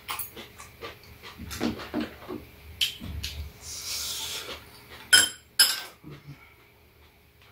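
Metal chopsticks and spoons clinking against bowls and a metal serving tray during a meal, with soft eating noises between. The loudest are two sharp clinks in quick succession about five seconds in.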